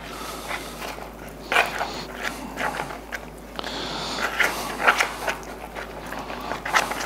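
A spoon scraping and clicking against a plastic bowl in quick, irregular strokes as it stirs and presses a thick cream of rice paste.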